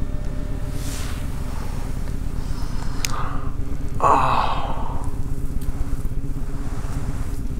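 A low, steady rumbling drone, with a breathy sigh from a person about four seconds in.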